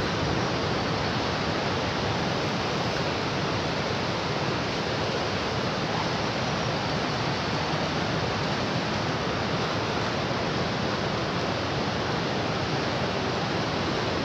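Steady, even rush of water pouring over a river weir.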